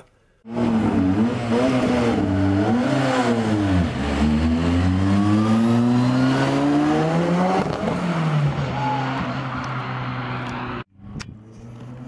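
Ford Escort RS Cosworth race car's turbocharged four-cylinder YB engine accelerating hard as the car drives past, the pitch dipping about four seconds in, climbing steadily through a gear, then dropping at a gear change about eight seconds in. The engine sound cuts off abruptly near the end.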